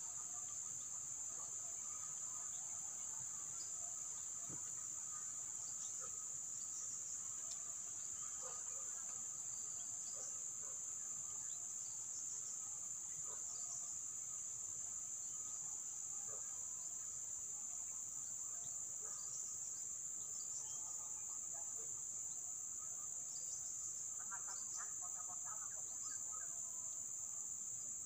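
Steady, high-pitched drone of insects in the woodland, with a weaker, lower steady trill and faint scattered chirps that come thicker near the end.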